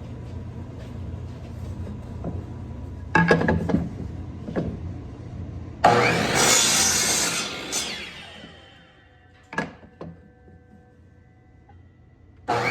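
Wooden ash jaw blocks being fitted into a cast-iron woodworking vise: a few sharp knocks, then a loud wood-on-metal scrape about six seconds in that fades away, and two clicks near the end.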